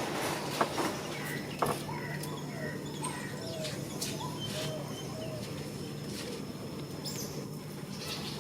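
Scattered short chirping calls and brief squeaks with a few sharp clicks near the start, over a steady low hum.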